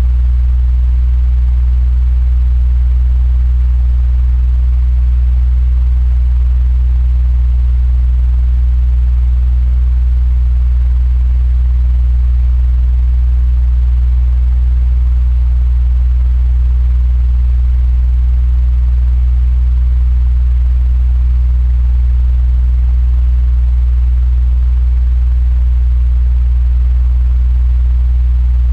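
Electric fan running steadily: a strong, constant low hum with a faint airy hiss above it.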